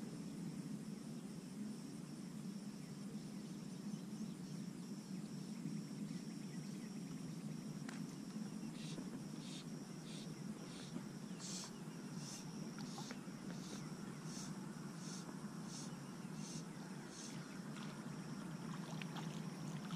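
Gentle water sloshing and lapping around a float tube, under a faint steady high tone. From about halfway, a short high chirp repeats roughly every two-thirds of a second.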